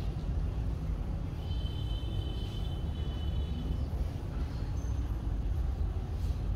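Steady low background rumble, with a faint high-pitched tone held for about two seconds starting about a second and a half in.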